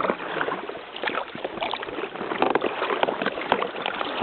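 Paddles splashing and water dripping around a Gumotex Twist 2 inflatable kayak being paddled: a steady run of irregular small splashes and knocks.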